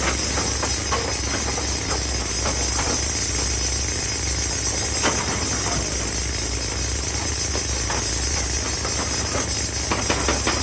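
Excavator's diesel engine running steadily under work, with scattered sharp knocks and clatter of rock.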